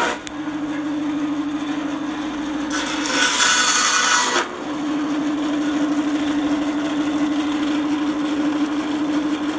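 Bandsaw running with a steady hum; about three seconds in, the blade cuts through a piece of blesbok horn for about a second and a half, adding a loud high hiss.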